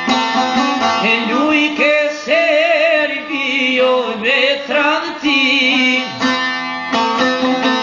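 Long-necked lute plucked in a fast, ornamented pattern, with a man singing a drawn-out, wavering melismatic line over it from about a second in until about six seconds in; after that the lute plays on alone.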